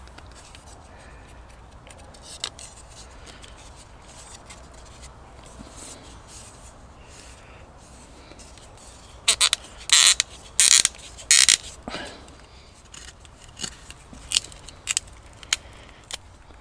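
Knife whittling a wooden stick: a run of five or six loud, sharp shaving strokes a little past halfway, then scattered lighter cuts and clicks.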